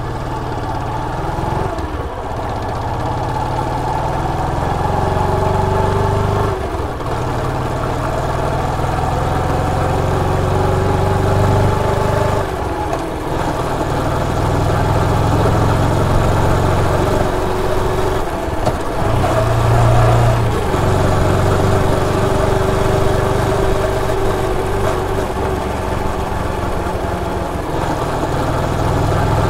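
Bajaj Pulsar motorcycle's single-cylinder engine running steadily, with several brief dips in level as the throttle eases off and picks up again.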